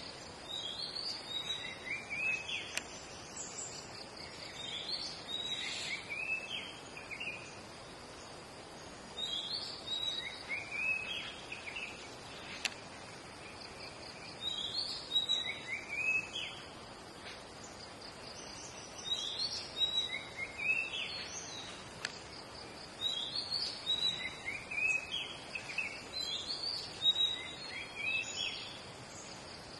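Forest birds calling in short phrases of sweeping high notes, repeated every few seconds, over a faint steady high insect drone.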